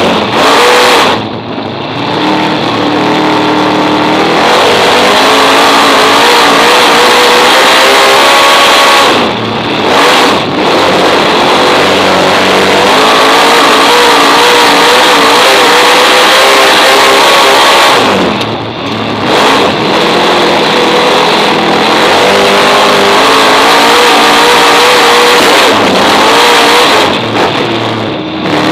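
Superstock race car's V8 engine heard from inside the cockpit, running hard at high revs. Roughly every nine seconds it briefly lets off, as the throttle is lifted for a turn of the oval, then climbs again under full throttle.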